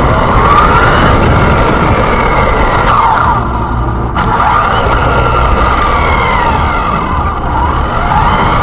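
Electric RC car's motor whining up and down in pitch as it speeds up and slows, over a steady rumble of tyres on the road. A sharp click about four seconds in.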